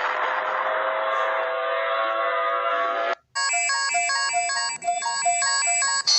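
A synthesized siren-style emergency alarm tone holds steady and cuts off suddenly about three seconds in. After a short gap, a short electronic chime melody of repeating notes plays, like a ringtone.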